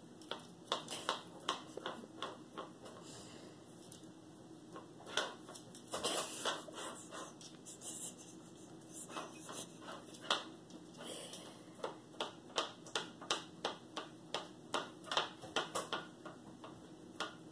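Small dog licking and smacking at sticky peanut butter on a plastic plate: an irregular run of short wet clicks and smacks, coming faster, several a second, in the second half.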